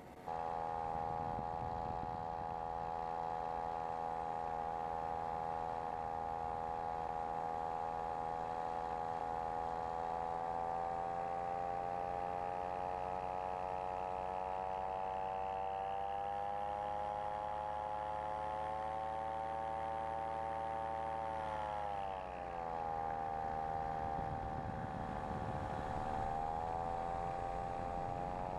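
Engine and pusher propeller of a Dragonfly SSDR microlight trike running steadily in flight. About three quarters of the way through, the pitch drops and then climbs back as the throttle is eased off and reopened, with a smaller dip shortly after.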